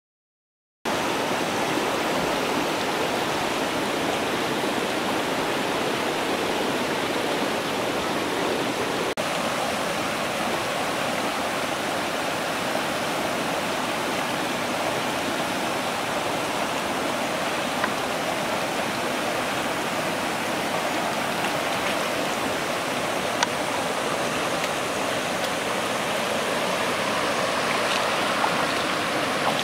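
Shallow stream water running steadily, starting about a second in, with a couple of faint clicks.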